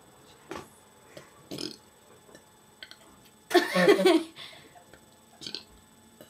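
A woman burping on command: one long, loud belch about three and a half seconds in, with a few short faint sounds before it.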